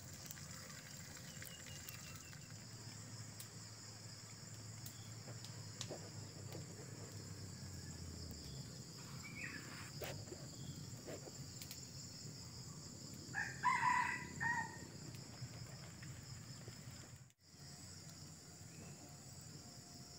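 A rooster crows once, about two-thirds of the way in, over a steady high drone of insects, with a few faint pops from the wood fire.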